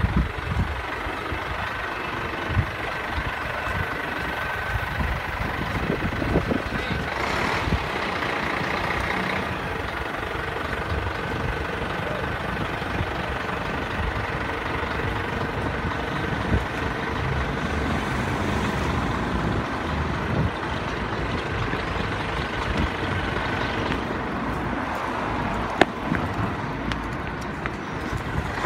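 Heavy tow truck's diesel engine running steadily as it moves through the junction, with a hiss lasting a couple of seconds about seven seconds in and a sharp click near the end.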